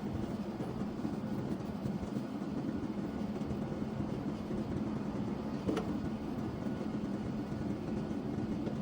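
Steady machine hum with a constant low tone, and a single sharp click a little before six seconds in.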